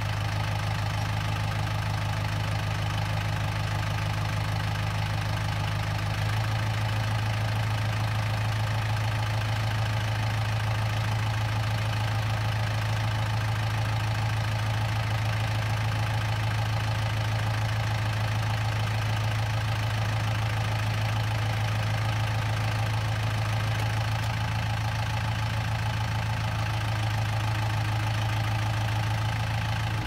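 Kubota tractor's diesel engine running steadily, driving a PTO post-hole auger boring into the ground. The engine note shifts slightly about six seconds in.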